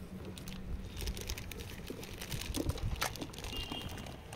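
Handling noise: irregular light clicks and rustles of a cardboard parcel and small plastic gear being picked up and moved about.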